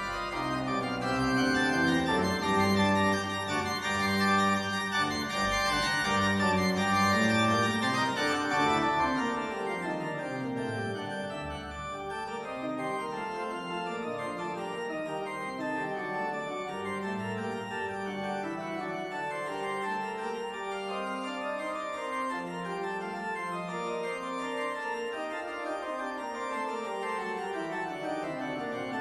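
Organ playing a closing voluntary in slow, sustained chords. It is louder for the first several seconds, then settles softer.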